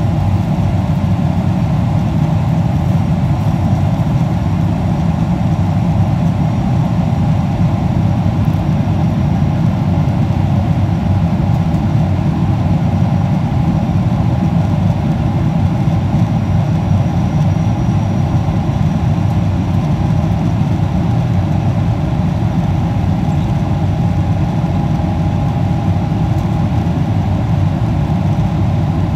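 Steady low rumble of a Boeing 777-300ER's twin GE90 turbofan engines as the airliner climbs away after takeoff.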